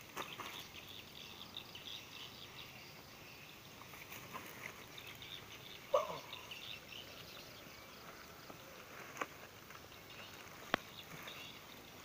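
Insects chirping steadily in a fast, fine rhythm, with a few short knocks and clicks from handling; the loudest is about six seconds in, and sharp clicks come near the end.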